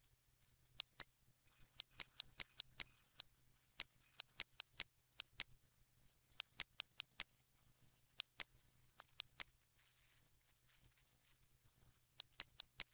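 Computer mouse buttons clicking sharply, in irregular runs of quick clicks separated by short pauses, over a faint steady low hum.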